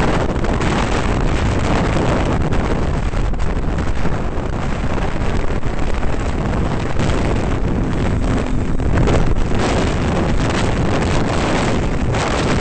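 Steady wind rush buffeting a helmet-mounted microphone while riding a snowmobile at speed, with the sled's engine running underneath.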